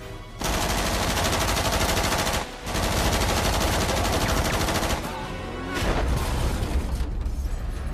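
Rapid automatic gunfire in long sustained bursts, with a brief break about two and a half seconds in, from an action film soundtrack's chase scene.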